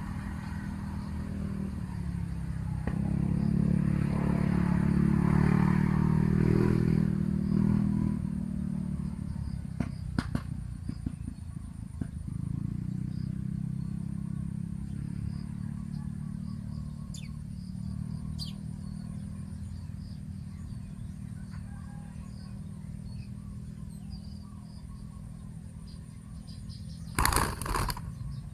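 An engine running steadily, louder between about three and eight seconds in, with a few sharp clicks about ten seconds in and a short loud burst of noise near the end.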